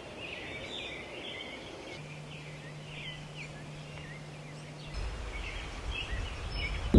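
Birds chirping, many short calls in a quiet outdoor background. A faint low steady hum runs for a few seconds in the middle, and a low rumble like wind on the microphone comes in about five seconds in.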